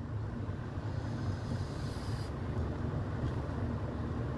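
Steady low rumble of a vehicle, with a faint high whine from about one second in to just past two seconds.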